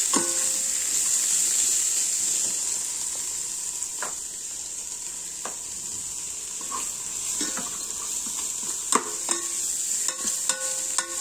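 Cabbage, coriander leaves, chopped onion and tomato sizzling as they fry in an electric cooker's pot, with a steady high hiss. A ladle stirs the vegetables and knocks against the pot now and then, with several quick knocks near the end.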